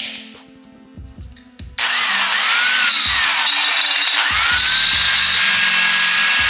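Power grinder cutting into the master link pin of a motorcycle drive chain, to break the chain. It starts suddenly about two seconds in: a loud grinding hiss over a high motor whine that sags and recovers in pitch as the wheel bites, then holds steady.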